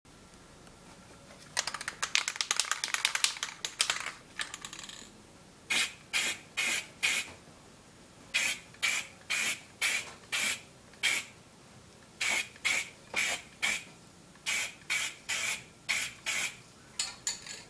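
Aerosol spray-paint can shaken, its mixing ball rattling rapidly for about three seconds, then sprayed in short hissing bursts about twice a second, in groups of four or five.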